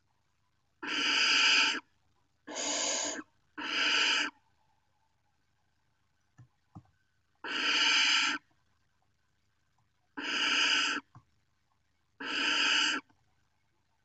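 Barn owl nestlings giving rasping, hissing begging calls ('snoring'), six in a row, each under a second long, with two faint ticks in the middle.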